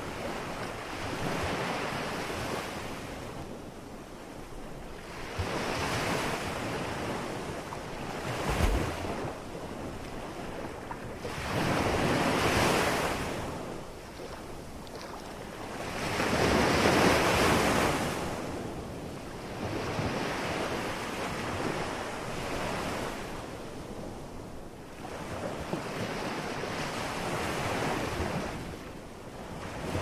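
Ocean surf breaking on a rocky shore, coming in rolling swells every four to six seconds, with wind on the microphone. There is a brief low thump about nine seconds in.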